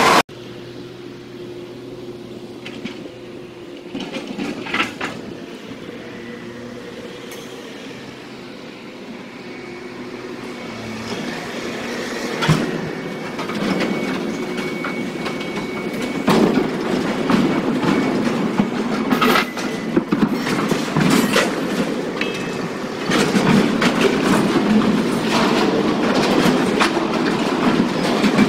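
Derailed freight train's boxcars rolling off the rails, a rumbling, grinding run of steel wheels and cars over broken track and dirt, with repeated metal clanks and bangs. It grows louder about a third of the way in, and a thin high squeal comes partway through.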